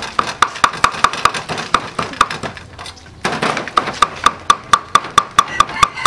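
Cleaver chopping raw beef on a thick round wooden chopping block, mincing it by hand: a steady run of sharp knocks about four or five a second. The chopping pauses for about a second and a half midway, with a brief rustling sound in the gap, then picks up again a little faster.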